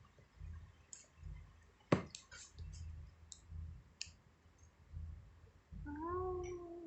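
Hand squeezing and poking glitter slime, giving scattered small clicks and pops, one sharper click about two seconds in. Near the end, a drawn-out exclamation like 'wooow'.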